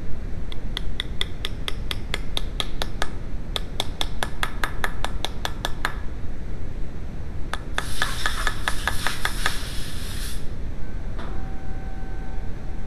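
Quick, light metal-on-metal hammer taps, about five a second in two runs, on a drift set in the hub of a VW A3 Mk3 rear brake rotor, working on the wheel bearing. Then a stretch of denser scraping and clattering of metal tools, and a faint steady hum near the end, all over a steady low background rumble.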